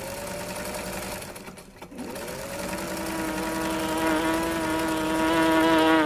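Electric sewing machine running: it speeds up and holds a steady whine, drops off briefly just before two seconds in, then speeds up again and runs steadily.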